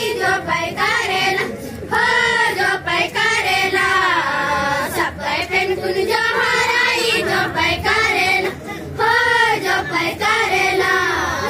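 A group of young girls singing a Gondi rela song (rela pata) together, in arching phrases that rise and fall and repeat every few seconds.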